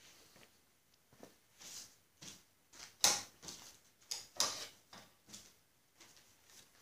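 Small metal parts being rummaged through and handled: a run of irregular clinks and rattles, loudest about three and about four and a half seconds in.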